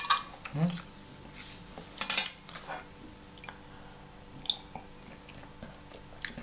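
Metal cutlery clinking as a fork is set down on a stone tabletop: one loud, ringing clink about two seconds in, with a few lighter clicks.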